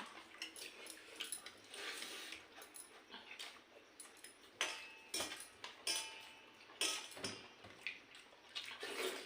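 Someone eating pakhala, rice soaked in water, with wet eating noises and a few sharp clicks.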